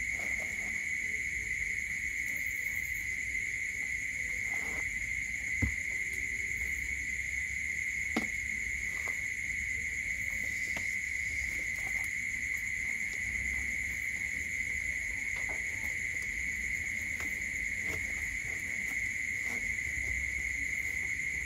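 Insects trilling in a steady, continuous high chorus, with two brief taps about six and eight seconds in.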